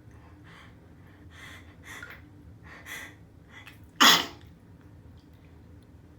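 A person's sneeze: a few soft, catching inhalations build up over about four seconds, then one loud sneeze bursts out and dies away quickly.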